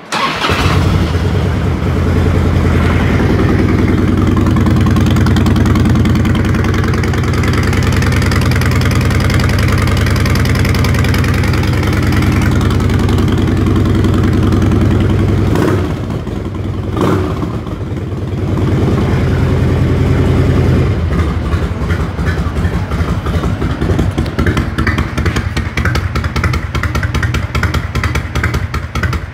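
A 1998 Harley-Davidson bagger's Evolution V-twin starts up and runs through its newly converted dual exhaust. It runs steadily at a fast idle, dips briefly about 16 seconds in, and from about 21 seconds settles to a slower idle with each firing pulse heard separately.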